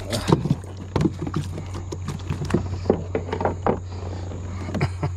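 A small yellow perch being unhooked on a plastic kayak: irregular knocks and clicks as the fish and the hooked lure bump and rattle against the hull, over a steady low hum.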